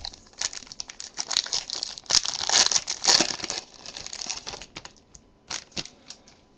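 A foil trading-card pack wrapper crinkling as it is torn open and peeled off the cards, loudest in the middle, followed by two short clicks near the end.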